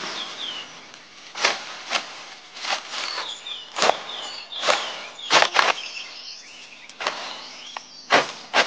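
Crisp snapping, crunching and rustling of leafy mustard greens as they are picked and packed into a woven bamboo back basket, in irregular strokes about every half second to a second. Birds chirp faintly in the background.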